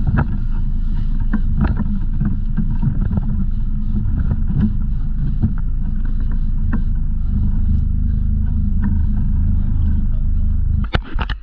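Sport-fishing boat's engine running steadily underway, a loud low drone with scattered light knocks and ticks over it. It stops abruptly near the end.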